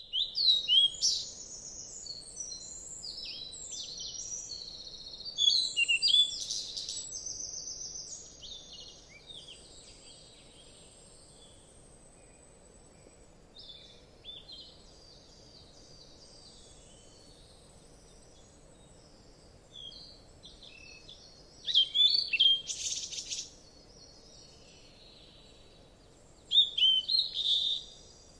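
Birds chirping and singing in short high bursts of calls and trills, over a faint steady background hum. The loudest bursts come right at the start, around six seconds in, and twice near the end.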